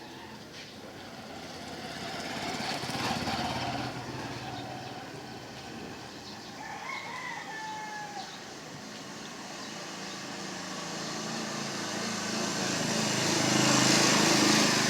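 A rooster crows once, about halfway through: a single drawn-out call that rises, holds and falls away. Near the end a passing motor vehicle swells in, becoming the loudest sound.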